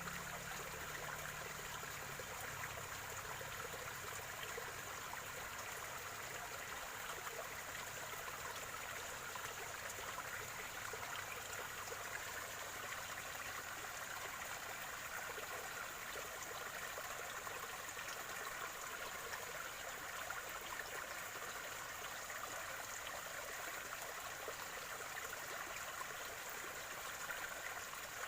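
Spring water trickling and gurgling in a small stream, steady and unbroken.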